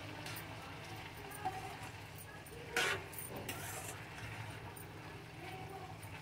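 Steel spatula stirring grated bottle gourd in milk in a steel kadhai, the mixture cooking down as its liquid boils off: soft scraping and faint clicks over a low steady hum, with one louder scrape of metal against the pan about three seconds in.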